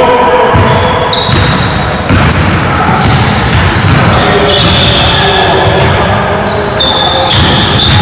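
Basketball bouncing on a hardwood gym floor during full-court play, the strikes ringing in a large gymnasium.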